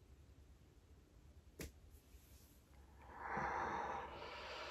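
A short click about a second and a half in, then a person's long breathy exhale, a sigh, starting about three seconds in.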